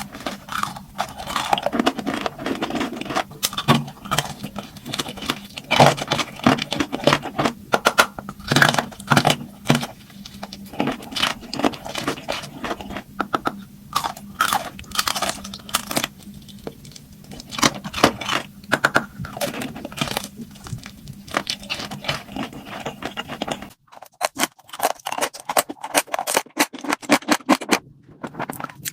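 Close-miked mukbang eating: crunchy bites and chewing, with scraping and crinkling sounds, in irregular loud clicks. A low background hum cuts out about 24 seconds in, where a new clip of eating sounds begins.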